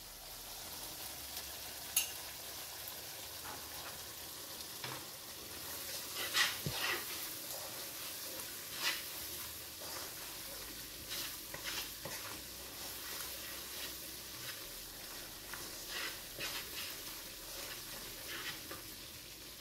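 Onion, ginger, garlic and spice masala sizzling in hot oil in a nonstick frying pan while a wooden spatula stirs and scrapes through it, with scattered clicks and knocks of the spatula against the pan.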